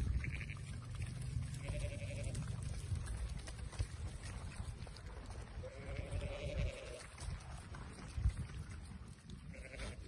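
Sheep bleating, about four wavering calls, the longest a little past the middle, as the flock waits to be fed. A low rumble runs underneath.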